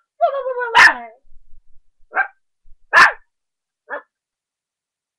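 Three-and-a-half-month-old puppy barking in play: a drawn-out whiny yelp that runs into a sharp, loud bark, then a softer yap, another loud bark and a last short yap.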